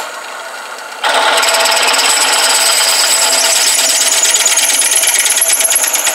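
Drill press running, then a brazed-carbide drill bit biting into the hardened steel of a drill chuck about a second in and cutting steadily with a loud, high-pitched whine and a rapid fine chatter. The carbide bit is cutting metal that an ordinary high-speed-steel bit could barely scratch.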